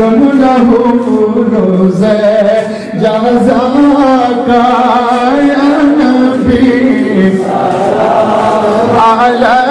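Devotional singing: a naat, an Islamic song praising the Prophet, sung in a continuous wavering melody.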